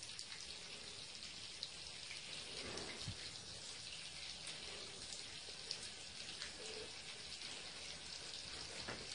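Thin stream of water from a bathtub tap running into an empty bathtub: a faint, steady splashing patter.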